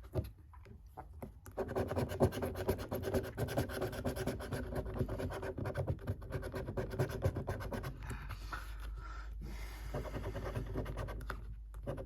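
A scratchcard's scratch-off coating being scraped away in rapid strokes, starting about a second and a half in.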